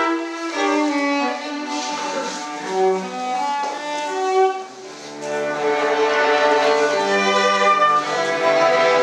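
Small live string ensemble of violins playing tango music for dancing. The sound thins out briefly about halfway through, then comes back fuller with lower notes underneath.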